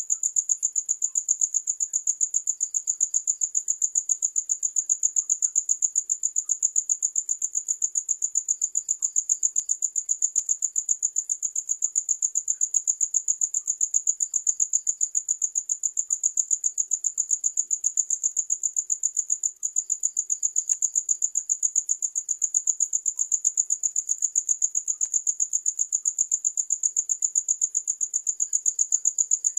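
Crickets chirping in a steady, high-pitched, rapidly pulsing trill that never breaks, with a softer, lower chirp about every five or six seconds.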